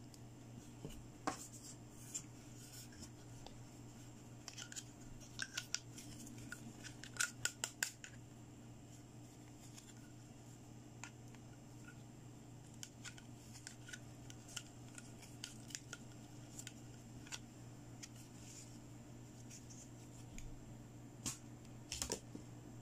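Hard plastic toy pieces clicking and tapping as they are handled, chiefly a clear plastic toy oxygen mask with its tube, in quick clusters of small clicks, busiest a few seconds in and again near the end. A faint steady hum runs underneath.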